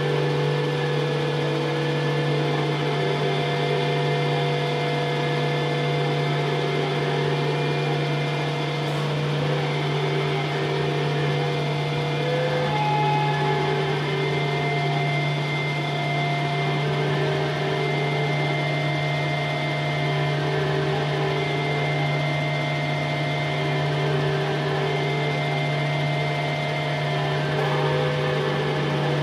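Experimental drone music: a steady low hum under layered, sustained tones that fade in and out and overlap.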